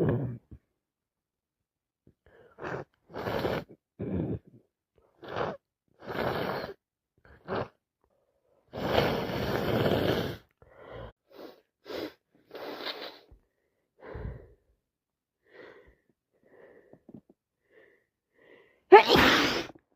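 A person with a cold sneezing again and again, with short breaths between the sneezes; the loudest, sharpest sneeze comes near the end.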